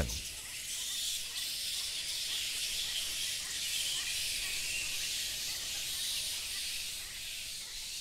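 A steady high hiss of outdoor evening ambience, with faint scattered ticks and chirps underneath.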